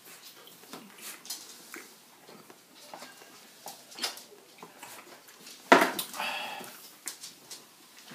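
Faint eating noises with small clicks and rustles, then, about six seconds in, one sudden loud, harsh burst of breath from a person, fading over about a second.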